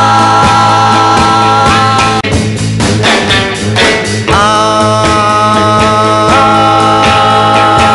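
Rock music soundtrack: held chords over a steady beat. The chords drop out for about two seconds in the middle, leaving only the beat, then come back.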